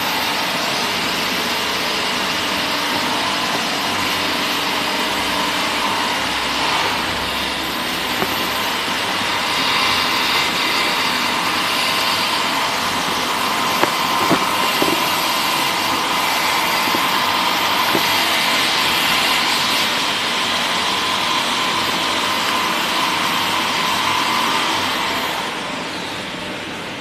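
3D dry powder blender machine running: steady mechanical noise from its motor and drive, with a few light clicks midway. The noise drops in level near the end.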